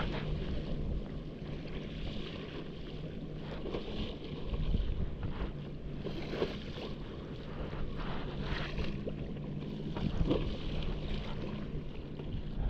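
Stand-up paddleboard paddle strokes splashing in sea water about every two seconds, over wind buffeting the microphone and a steady low hum.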